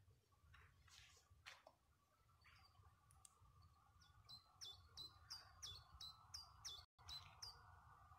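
Near silence with faint bird song: from about halfway in, a quick series of about ten short high chirps, each falling in pitch, about three a second, over a faint steady hum.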